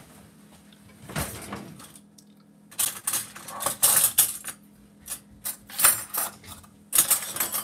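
Metal spoons and cutlery clinking and rattling as they are picked out of a dish drainer, a string of sharp clinks starting about three seconds in and getting busier near the end, over a faint steady hum.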